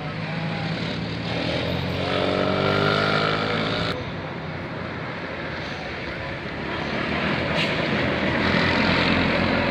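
Tour bus's telolet basuri musical horn sounding a chord of tones for a few seconds, cutting off abruptly about four seconds in. Under it the bus engine runs steadily with street noise, which grows louder again near the end.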